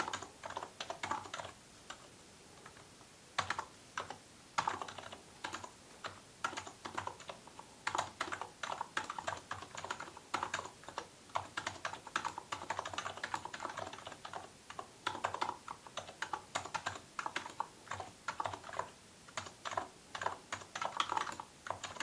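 Typing on an electrostatic capacitive (Topre-style) keyboard: quick runs of key strokes, with a short pause about two seconds in.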